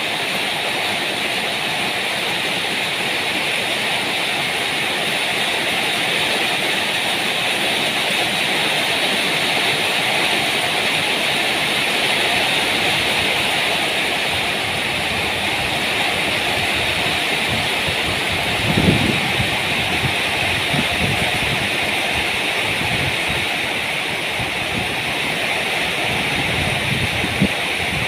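Steady heavy rain falling, an even, unbroken hiss. A few short low thuds come through about two-thirds of the way in and again near the end.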